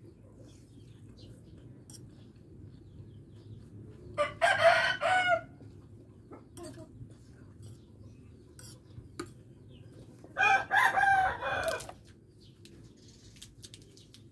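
A rooster crowing twice, about six seconds apart, each crow a little over a second long and loud.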